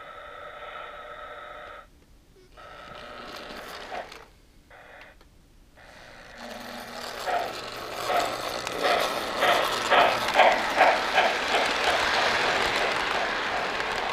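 O-gauge model steam locomotive getting under way: a faint steady hum with brief pauses, then a chuff beat that starts about halfway through and quickens. It settles into a steady rolling rush of the train and its cars running along the track.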